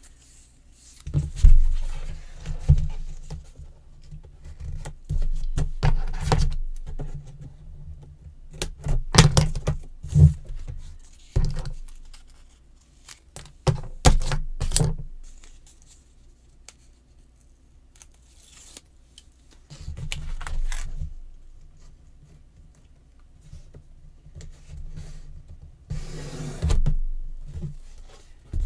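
Paper and small craft tools handled on a tabletop: irregular taps, knocks and scrapes as sheets of patterned cardstock slide and tools are picked up and set down, with quieter stretches between.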